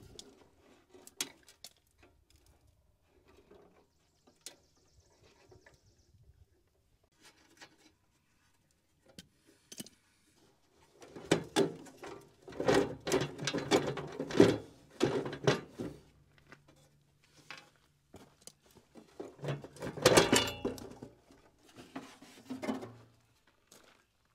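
Hand tools and loose metal parts clinking, knocking and clattering as bolts and parts are worked off a compact tractor. The knocks are scattered at first, then come thick and loud about halfway through and again near the end.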